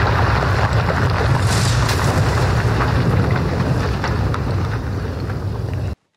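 Fireball sound effect: a loud, steady rumbling rush of flames that cuts off suddenly near the end.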